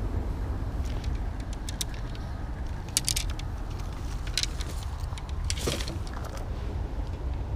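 Wind rumbling on the microphone, with scattered clicks and rattles of fishing rods and reels being handled and set down beside a tool bag.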